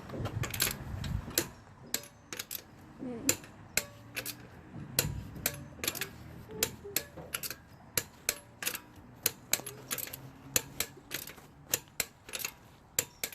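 Click-type torque wrench ratcheting on the wheel's lug nuts, a steady series of sharp clicks at about two to three a second as the nuts are run down to torque.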